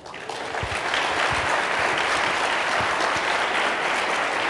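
Audience applauding: the clapping starts at once and swells over the first second to a steady level.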